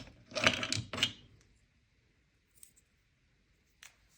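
Hand handling of a plastic Magnalatch lock knob and shaft while the shaft is pulled up through the new knob: about a second of rustling and clicking, then a couple of faint small clicks.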